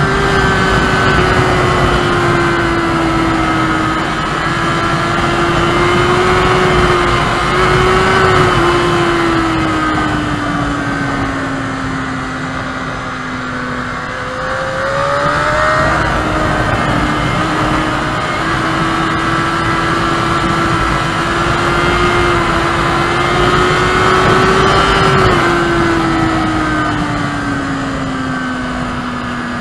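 Honda CBR600RR inline-four engine running at high revs through a string of corners, its pitch easing down as the bike slows toward the middle, then a quick rising rev and a steady pull before it eases off again near the end. Wind rushes over the microphone throughout.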